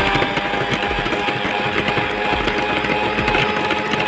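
Electric hand mixer running steadily with a constant whine, beating a cake batter of curd, sugar and oil.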